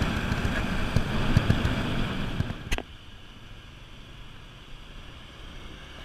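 Wind buffeting the microphone and road noise from a moving scooter. A sharp click comes a little under three seconds in, after which the noise drops to a quieter steady hum.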